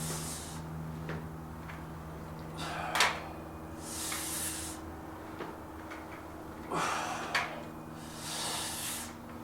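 Breathing between slow reps of dumbbell flies: hissing breaths about every four seconds, with a sharp click twice. A steady low hum underneath.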